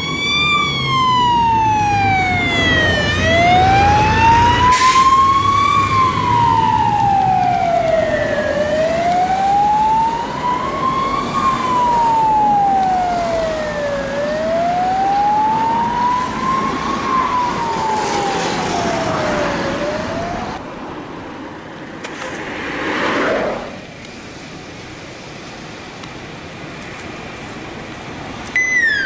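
Fire engine's wail siren sweeping slowly up and down, one rise and fall about every five to six seconds, over the truck's engine, which is loudest in the first few seconds. The siren stops about 20 seconds in; a vehicle passes with a swell of road noise, then quieter traffic, and another siren starts falling in pitch right at the end.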